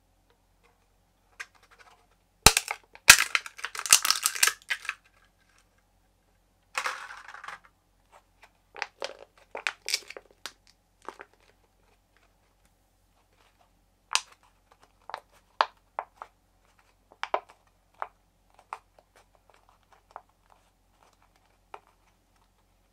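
Thin-walled 3D-printed plastic vases being crushed by hand: two sharp cracks about two and a half seconds in, then a burst of crackling. After that come softer crinkles and scattered clicks as the nylon print is crumpled and flexed back into shape without breaking.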